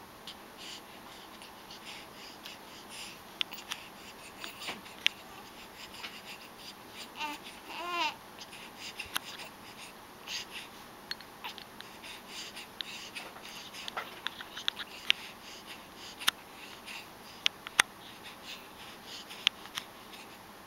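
Baby babbling, with one clear drawn-out vocal sound about a third of the way in, among scattered small clicks and rustles.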